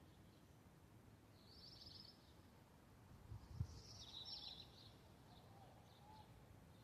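Faint bird trills, two short bursts a couple of seconds apart, over a quiet background, with one brief low thump midway.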